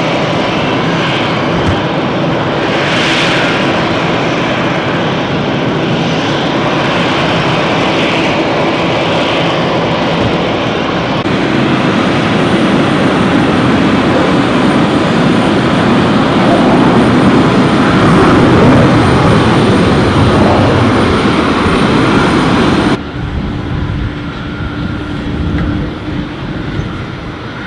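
Private jet's engines running: a loud, steady rush of jet noise with a high whine over it. Near the end it drops suddenly to a quieter engine hum.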